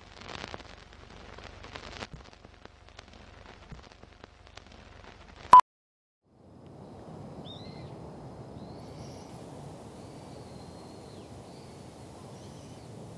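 Outdoor ambience: a steady low wind rumble with small birds chirping now and then, starting about six seconds in. Before it comes faint irregular crackling that ends in one sharp click.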